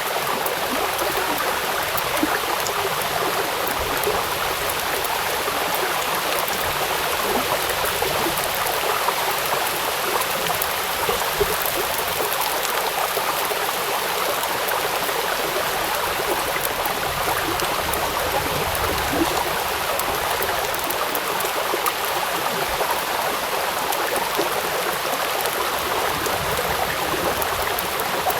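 Rain falling onto a river: a steady, even wash of water noise with many small drops pattering on the surface.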